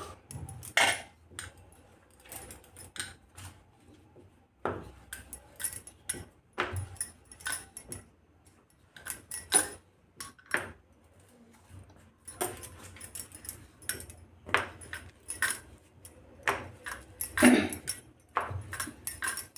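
Wooden rolling pin rolling and knocking on a granite counter while a stuffed paratha is rolled out: irregular light clicks and clinks with a few sharper knocks.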